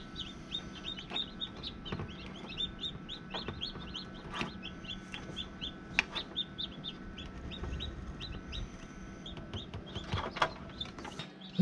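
Newly hatched chick peeping over and over, short high chirps a few times a second, over a low steady hum. A few light knocks come through, the last ones near the end.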